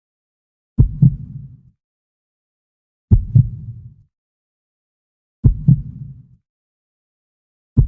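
Heartbeat sound effect: slow, deep double thumps, lub-dub, with the two beats about a quarter second apart. A pair comes about every two and a half seconds, with dead silence between; three pairs play, and a fourth starts right at the end.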